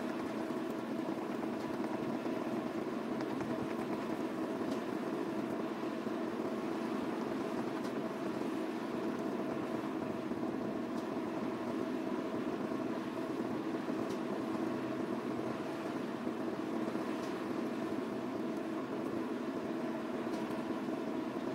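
Steady engine drone of the SLJ900/32 mobile bridge erecting machine's diesel power unit, running at a constant pitch.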